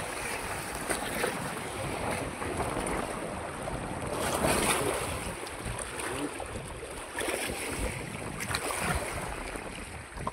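Wind blowing over the microphone: a steady rushing noise with a low rumble that rises and falls, and a few faint ticks.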